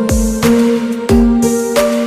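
Background music: electronic track with sustained synth notes and a deep falling bass drum hit about every half second.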